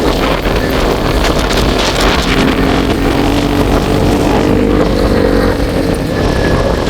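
A vehicle engine running steadily while driving, its hum drifting slightly up and down, with wind rumbling on the microphone.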